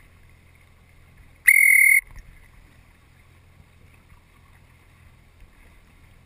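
A single short whistle blast, a steady high tone lasting about half a second, about a second and a half in: the coach's signal for the Laser dinghies to tack. Under it, a low steady hum from the coach boat's motor and water.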